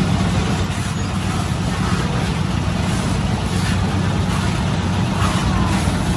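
Steady street traffic noise: a low hum of engines running with an even wash of road noise.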